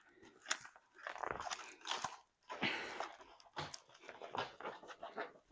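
Irregular crinkling and crackling of a diamond painting kit's plastic-covered canvas and packaging being handled, in uneven bursts.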